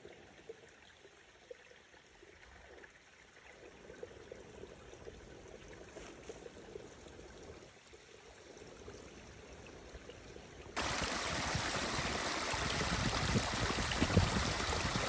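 Running water, a small stream of rainwater flowing on or beside the trail. It is faint at first and becomes much louder and close about eleven seconds in.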